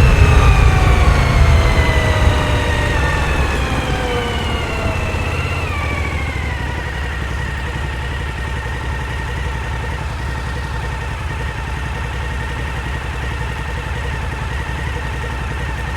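Suzuki SV1000's V-twin engine winding down as the bike slows, its pitch falling for the first six seconds or so, then running steadily at low revs.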